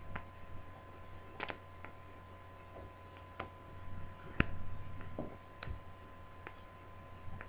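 Small screwdriver and tiny laptop screws making scattered light clicks and taps, about nine of them at irregular intervals, the sharpest about four seconds in, while a motherboard's screws are being removed. A steady faint hum runs underneath.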